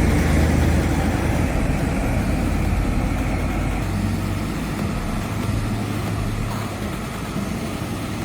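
Heavy machinery engine running steadily with a low, even drone, easing a little quieter toward the end.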